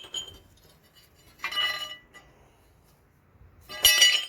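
Metal parts knocking together: two sharp clinks that ring on briefly, one about a second and a half in and a louder one near the end.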